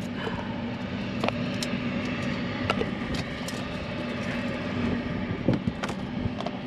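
A steady low motor hum, with a few light clicks and knocks scattered over it.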